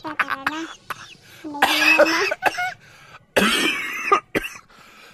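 A person's voice making short wordless vocal sounds, then a rough cough about three and a half seconds in.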